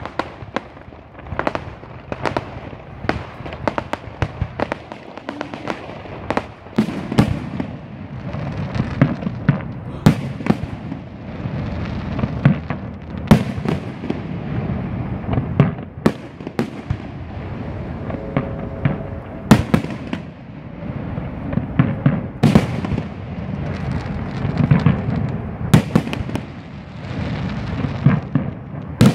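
Aerial fireworks shells bursting in quick succession: sharp bangs over a dense run of smaller pops and a low rumble, getting busier about seven seconds in.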